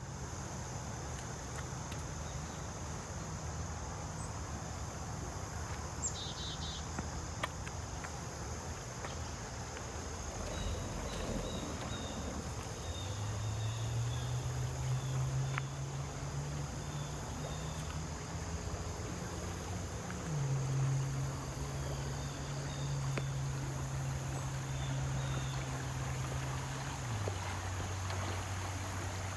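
Steady insect chorus like crickets, with faint short bird chirps. Under it runs a low sustained hum that shifts to a new pitch in steps three times.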